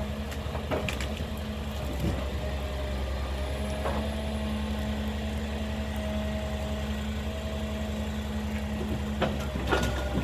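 Ponsse Elephant King forwarder's diesel engine running steadily under crane work, with a fainter hydraulic whine that wavers over the engine note. A few sharp wooden knocks as eucalypt logs are handled by the grapple, the loudest near the end as the load settles onto the bunk.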